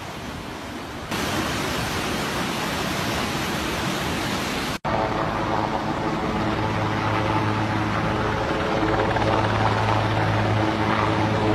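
Floodwater rushing, a steady noisy roar. After a sudden cut about five seconds in, a helicopter flies over with a steady droning hum on top of the rushing noise.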